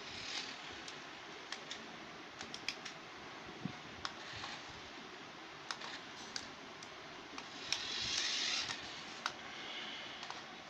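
A small toy RC car's electric motor and plastic wheels running in short spurts on a stone floor, heard as brief rushing whirs, the loudest about eight seconds in. Scattered light clicks run throughout.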